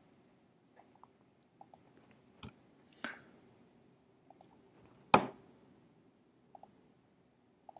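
Scattered faint clicks and keystrokes from a computer mouse and keyboard while a spreadsheet formula is entered, with one louder click about five seconds in.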